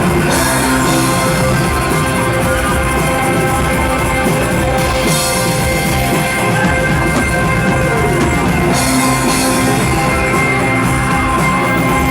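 Live rock band playing an instrumental passage of a song, loud, with drum kit, electric guitar and bass. The cymbals thin out midway and crash back in about three quarters of the way through.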